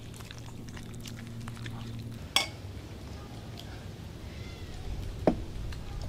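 Small dog eating a treat from a person's hand, with a low steady hum that stops about two seconds in and two sharp clicks, about two and a half and five seconds in.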